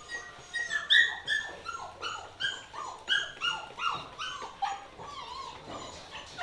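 Several baby goats bleating over one another: a quick run of short, high calls, each falling in pitch, about two or three a second, thinning out near the end.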